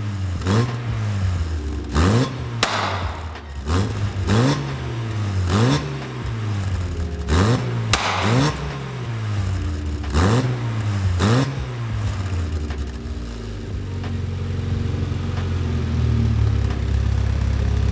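Mazda MX-5 four-cylinder engine revved in about ten quick blips through a freshly fitted exhaust (a sleeved-together aftermarket pipe with an old back box), the revs rising sharply and falling back each time, then settling to a steady idle about twelve seconds in.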